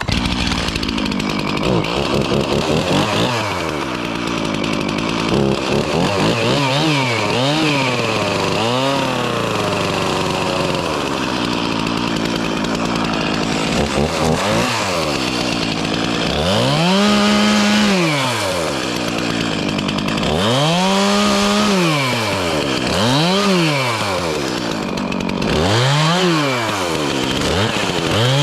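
Chainsaw cutting up downed tree branches, revving up and dropping back again and again as it works through the limbs, its pitch rising and falling every couple of seconds in the second half.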